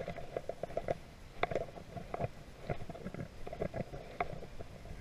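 Footsteps crunching through dry brush and leaves, an irregular run of short crunches and rustles close to the microphone.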